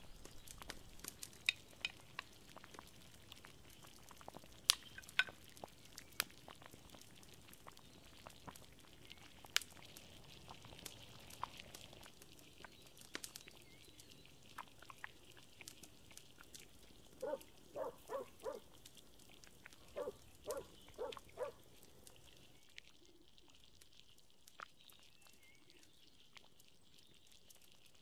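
Wood fire crackling under a cooking pot, with scattered sharp pops over the first half. Past the middle an animal calls in two quick runs of four short calls, a couple of seconds apart.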